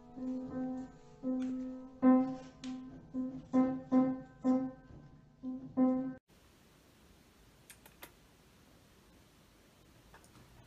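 A cat's paws pressing the keys of an upright piano: uneven single notes, mostly the same one struck again and again, about a dozen in all, stopping suddenly about six seconds in. After that only faint room hiss with a couple of light clicks.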